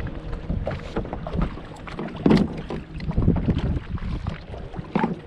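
Wind rumbling on the microphone of a kayak out on the water, with a few sharp knocks, the loudest about two seconds in and another near the end.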